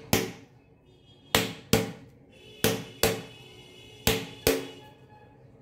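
Hard-shelled bel fruit (wood apple) being struck with a wooden rolling pin to crack its shell: about seven sharp knocks, mostly in pairs, each with a short ringing tail.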